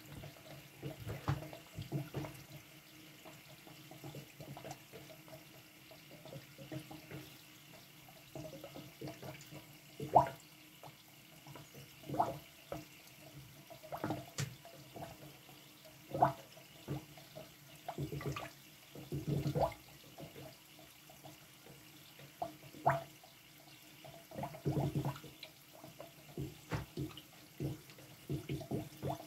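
Molten wax bubbling around a wooden bee box in a wax-dipping tank, with irregular pops and gurgles and one sharper pop about ten seconds in. The bubbling is moisture in the wood boiling off as steam.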